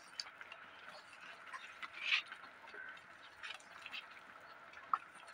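Hand squeezing and kneading raw boneless chicken pieces in a thick wet marinade in a steel bowl: faint, irregular squelching with a few small clicks, a slightly louder squish about two seconds in.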